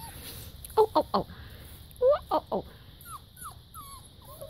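Young puppies whining and yelping in short high cries that slide down in pitch: a quick cluster of three about a second in, another three at about two seconds, then a few fainter ones.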